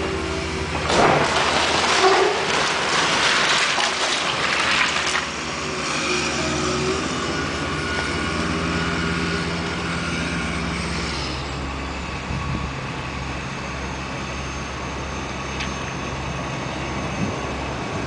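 Heavy diesel engine of a Caterpillar construction machine running steadily. About a second in, a loud rushing noise rises over it and lasts some four seconds.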